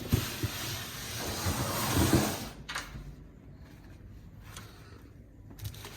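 Front door being opened and parcels brought in: a rushing, rustling noise with low knocks that builds for about two and a half seconds and stops abruptly, then a couple of faint clicks.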